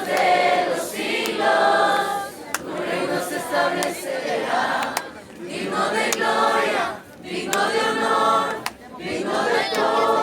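A group of young people singing together, in phrases broken by short pauses.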